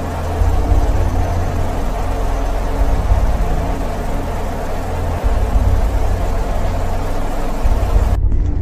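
Steady low rumble with a faint hum over it, like an engine running; near the end it cuts abruptly to a duller recording.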